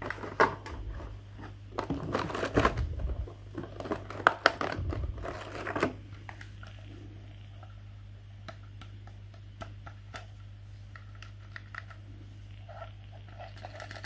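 Thin clear plastic blister packaging crinkling and clacking as plastic toys are lifted out of it and set back in. About six seconds in this stops, leaving only a few faint plastic taps and clicks over a steady low hum.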